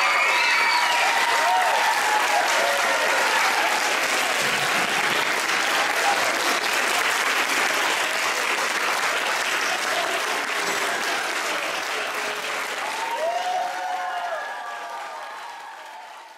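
Clapping from a crowd, with some voices calling out over it; the applause slowly dies away and fades out near the end.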